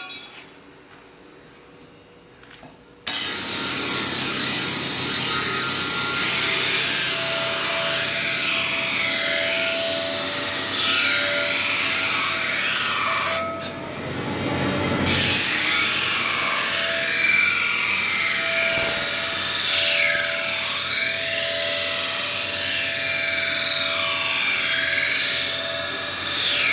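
A carbon-steel kukri blade being ground on a large motor-driven grinding wheel: a loud, harsh grinding whose pitch sweeps up and down as the blade is worked against the wheel. It starts about three seconds in and breaks off briefly about halfway.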